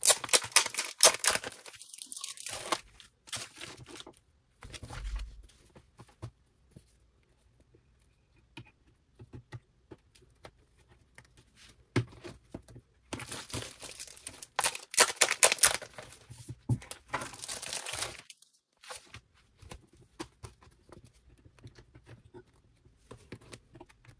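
Clear plastic 10-pocket binder pages rustling and crinkling as they are handled and put onto a ring binder, loudest in two spells: at the start and again for several seconds after the middle. A sharp click just before the second spell, as the binder's metal rings are opened.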